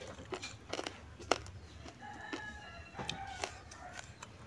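A rooster crows in the background about two seconds in, one call lasting a little over a second. Sharp little clicks and smacks of hand-eating, fingers working sticky rice, are heard throughout, the loudest about a second in.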